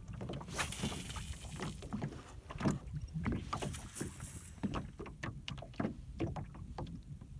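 Small waves lapping and slapping against an aluminum boat's hull, with irregular knocks and clunks as a person moves about in the boat and handles fishing rods. Wind rumbles on the microphone, with brief gusts of hiss about half a second in and again about four seconds in.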